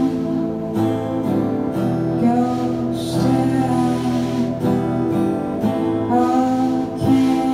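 A live band playing a song: a strummed acoustic guitar together with an electric guitar and a bass guitar.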